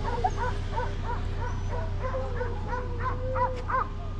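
A pack of boar-hunting dogs baying and yelping on a wild boar, many short overlapping cries several times a second, with one longer drawn-out cry about halfway through.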